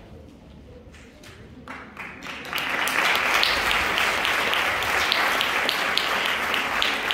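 Audience applauding: a few scattered claps about two seconds in, quickly swelling into full, steady applause.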